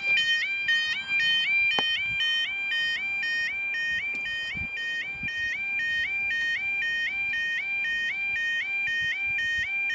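UK level crossing two-tone yodel alarm sounding continuously, a rapid warble repeating about three times a second: the warning that the barriers are coming down for a train.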